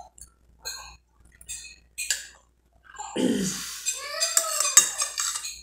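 Metal spoon clinking and scraping in a glass bowl, with eating sounds. From about three seconds in comes a louder stretch in which a drawn-out voiced sound from the eater runs over the spoon's clatter.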